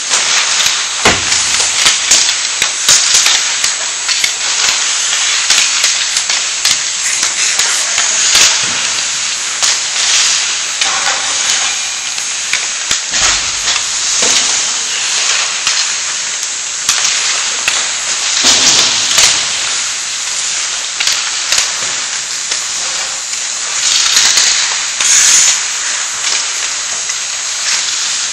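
Ice hockey skates scraping and carving on rink ice, a steady hiss with a few louder scrapes along the way, broken by many sharp clacks of sticks and puck.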